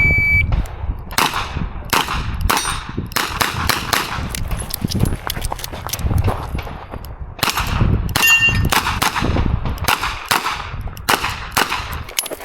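A shot timer beeps once at the start, then a revolver fires a fast string of shots with steel targets clanging and ringing as they are hit. There is a short pause about seven seconds in, fitting a reload, before the shooting goes on.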